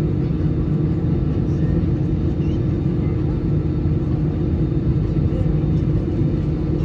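Steady low rumble inside the cabin of an Airbus A320-family airliner on the ground, from the aircraft's engines running, with a steady hum over it.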